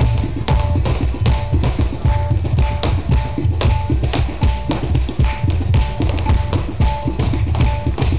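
Live flamenco music: a cajon and quick, dense percussive strikes, with the dancer's heeled footwork on the stage, over guitar and violin playing a short repeating figure.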